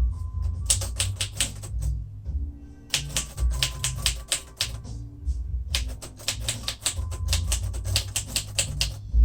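A 1948 Royal Quiet Deluxe manual typewriter being typed on at a steady pace. It gives fast runs of sharp keystrokes in three bursts, with short pauses between them.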